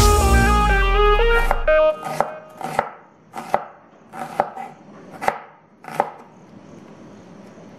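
Chef's knife chopping red onion on a wooden cutting board: about six sharp chops, roughly one a second. Electronic background music fades out over the first two seconds.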